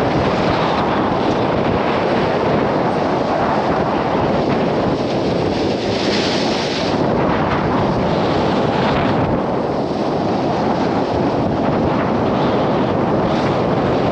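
Heavy wind buffeting the microphone over the rush of seawater along a sailboat's hull as she heels through rough seas. The hiss swells twice, about six seconds in and again near the end, as waves break and foam past the bow.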